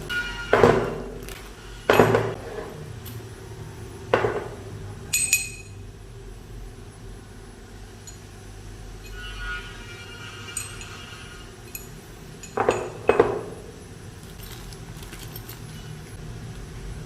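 Hard metal and plastic accessory parts knocking and clinking as they are handled, about six sharp knocks, one of them with a brief metallic ring.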